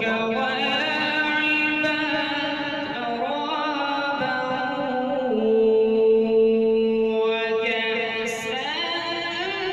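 A man reciting the Quran in the melodic, sung style of tilawat, holding long drawn-out notes that step up and down in pitch, and climbing higher near the end.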